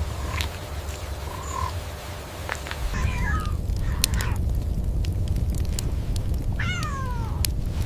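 Panther cub mewing: a few short high cries, then a longer falling cry near the end. A low steady rumble runs underneath from about three seconds in.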